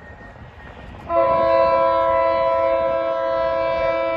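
Air horn of an MBTA GP40MC diesel locomotive leading a commuter train, sounding one long, steady chord of several notes that starts abruptly about a second in.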